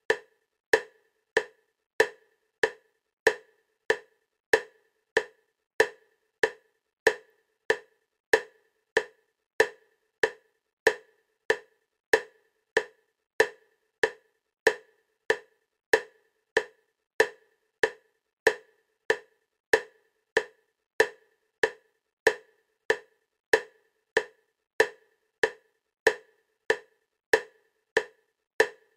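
EMDR bilateral-stimulation clicks: a short, sharp click repeating at a perfectly steady 96 beats a minute, about one every 0.6 seconds, alternating side to side.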